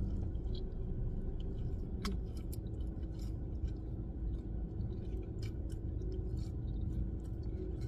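A person biting into and chewing a double-patty cheeseburger, with scattered short mouth clicks, over a steady low rumble.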